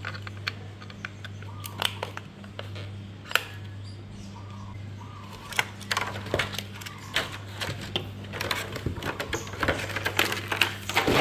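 Plastic clicks and taps as a toy excavator's plastic remote control and the toy are handled in a cardboard box, turning to crinkling of a clear plastic packing sheet near the end, loudest at the very end. A steady low hum runs underneath.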